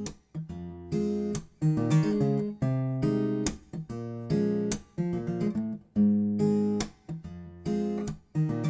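Instrumental acoustic guitar music: plucked notes and strummed chords in a steady rhythm.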